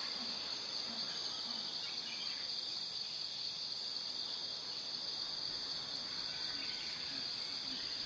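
Steady high-pitched insect chorus, a continuous chirring drone, with a few faint short low calls now and then.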